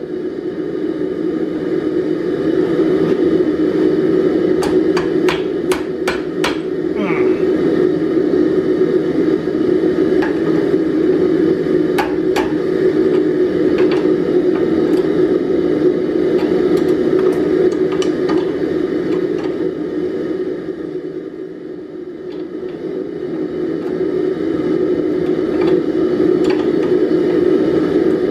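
Ball-peen hammer striking a red-hot steel bar to bend it around the post of a bending jig held in a bench vise: a quick run of about six ringing blows about five seconds in, then a few scattered single blows. A steady low drone runs underneath.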